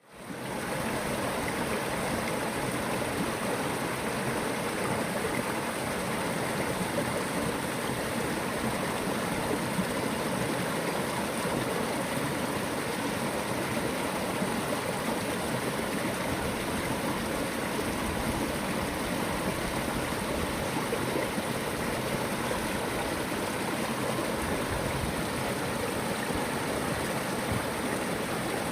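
Stream water running in a steady, even rush, fading in at the very start.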